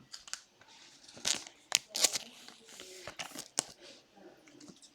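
Trading cards and their plastic and foil packaging being handled: a run of short, sharp rustles and crinkles, loudest around the middle.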